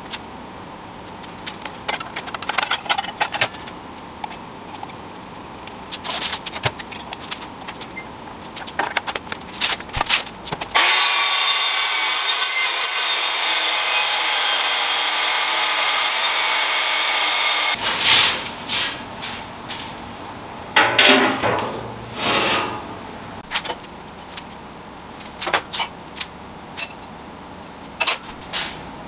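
Metal shop work: scattered clanks and scrapes, then a power tool running steadily with a hiss for about seven seconds from about eleven seconds in, then more clanks and scrapes.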